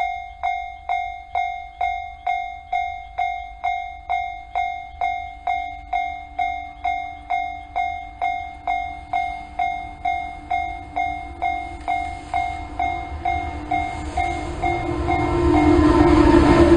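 Level-crossing alarm bell dinging steadily, about two strikes a second, as a red electric freight locomotive hauling container wagons approaches. The train's rumble and wheel noise build through the second half and drown the bell near the end as the locomotive passes close by.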